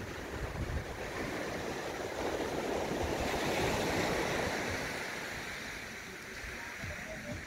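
Surf washing onto a sandy beach: a rush of water that swells to a peak about halfway through and then fades.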